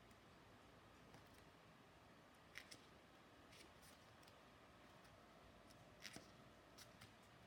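Near silence with a few faint, short clicks and snaps of tarot cards being handled, two close pairs of them about a third of the way in and again near the end.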